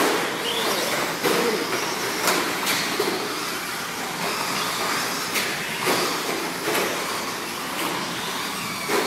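Several 2WD radio-controlled short course trucks racing on a dirt track: a steady din of their motors and tyres on the dirt, with sharp knocks every second or so from jumps, landings and hits.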